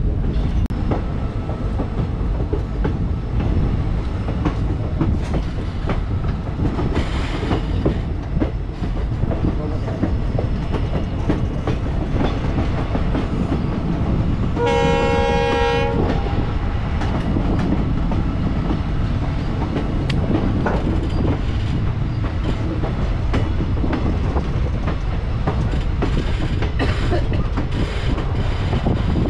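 Passenger train running, heard from an open coach door: a steady rumble of wheels on rail with clickety-clack. About halfway through, the locomotive's horn sounds once for about a second and a half.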